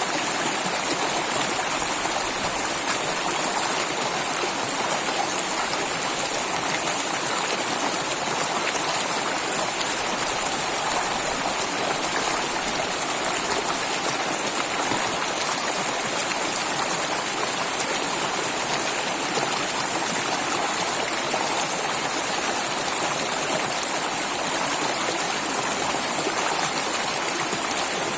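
Flowing water running steadily, an even rushing hiss with no change in level.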